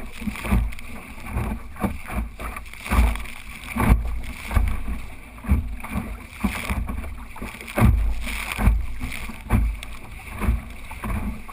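Water slapping and rushing against the hull of a small sailing dinghy underway through chop, with irregular low thumps every half second to a second.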